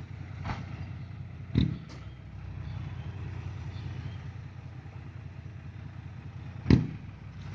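Diesel engine running steadily with a low, even rumble, broken by a few sharp knocks, the loudest near the end.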